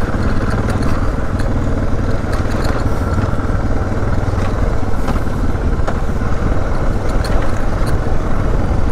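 Off-road motorcycle engine running steadily, with a few light clicks over it.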